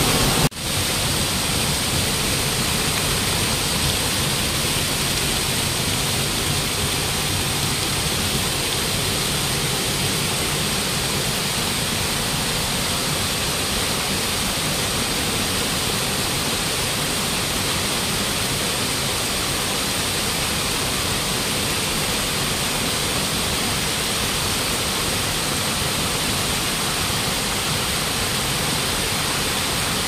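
Waterfall on a river, water falling in a steady, even rush with no change. A single brief click about half a second in.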